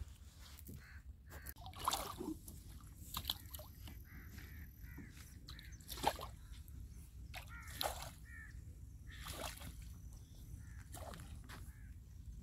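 Crows cawing in short repeated calls, with water sloshing and several sharp splashes as a boat pole is pushed through the shallows.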